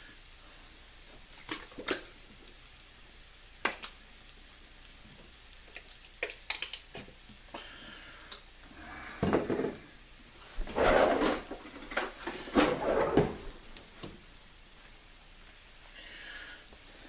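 Kitchen handling noises: a few light clicks and knocks, then a plastic ketchup bottle squeezed onto a pizza crust, giving a run of loud sputtering squirts about two-thirds of the way through. Near the end a spoon faintly scrapes in the metal cake pan as the sauce is spread.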